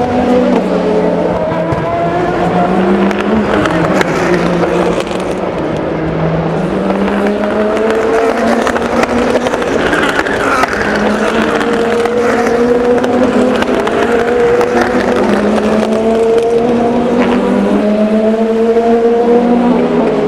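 Several endurance race car engines accelerating one after another, each note climbing in pitch and dropping back at the gear changes, overlapping without a break.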